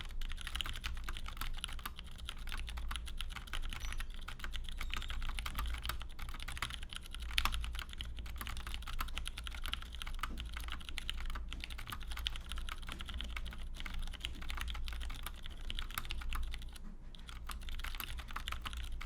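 Continuous fast typing on a GON HHKB custom 60% mechanical keyboard with lubed and stickered Ergo Clear tactile switches (62 g springs) and GMK keycaps: a dense run of key clacks with a brief pause near the end and one louder stroke about seven seconds in.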